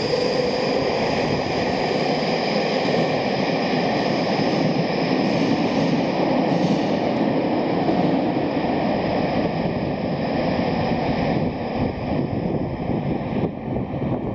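Tokyo Metro Fukutoshin Line train running through its underground tunnel, a steady rumble of wheels on rail with a thin steady whine over it. The sound eases a little in the last few seconds.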